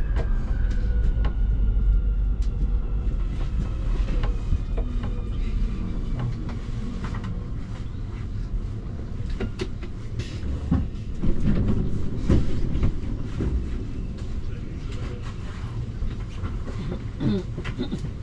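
Underground metro train running in its tunnel: the electric motors whine, falling slowly in pitch over the first few seconds as it slows, over a steady low rumble with wheels clicking on the rails. Louder knocks and rumbles come through about two-thirds of the way in.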